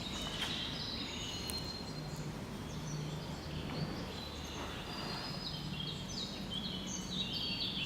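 Several birds chirping in short, high, repeated notes, thickest near the end, over a steady low background hum.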